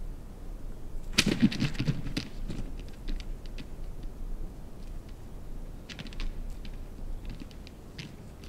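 Gould's wild turkey gobbler attacking a turkey decoy: a flurry of wing beats and hard taps about a second in, then scattered sharp tapping as it strikes and treads on the decoy.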